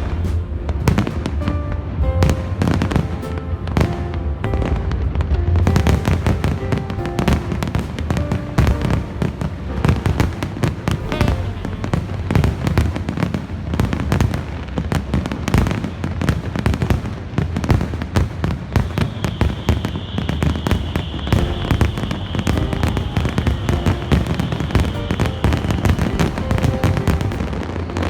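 Fireworks display: rapid, dense bangs and crackling bursts going off one after another, over accompanying music.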